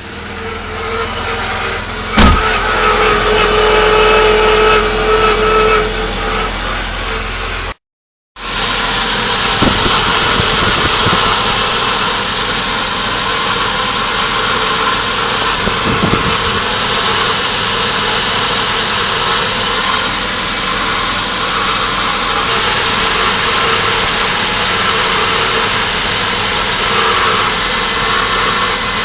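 Toyota HiAce 1RZ 2.0-litre four-cylinder petrol engine running with an abnormal noise, which a dealer mechanic traced to the starter system. A sharp click about two seconds in is followed by a steady whine for a few seconds; the sound drops out briefly about eight seconds in, then the engine runs on steadily.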